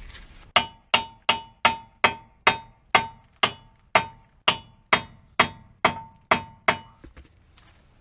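Hammer striking metal about fifteen times, roughly two blows a second, each blow ringing with a clear metallic note that dies away quickly.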